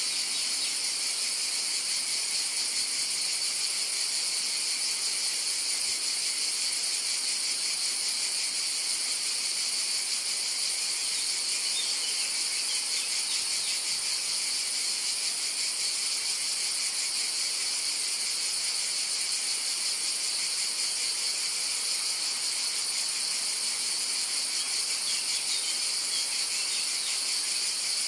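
Steady, high-pitched insect chorus: an even, shrill buzzing that runs without a break.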